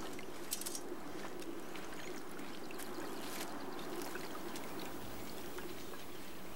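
Soft steady background hiss, like faintly trickling water, with a few light clicks.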